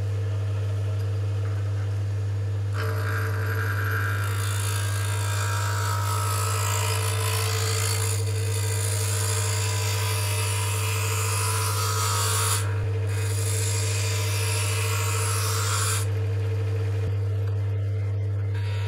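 Wood lathe running with a steady hum while a gouge cuts a spinning wooden dowel, giving a hissing, scraping cut as shavings come off. The cutting starts a few seconds in, breaks briefly and stops a few seconds before the end, while the lathe keeps humming.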